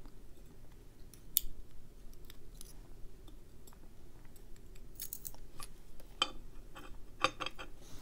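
Small metal clicks and taps of tweezers working lock driver pins and springs out of a brass euro profile cylinder and setting them down in a metal pinning tray. The clicks are scattered and irregular, with one sharper tick about a second and a half in and a cluster of them in the second half.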